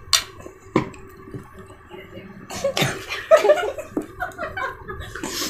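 Children eating at a table: sharp clicks and knocks, with a second-long burst of a child's voice about two and a half seconds in.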